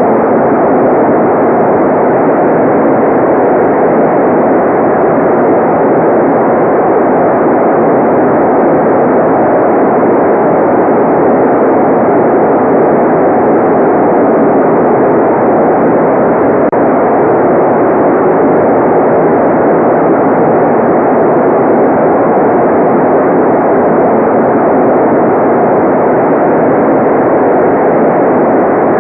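Steady, loud electronically generated white noise: an even, unchanging rush with no treble, so it sounds duller than a bright hiss.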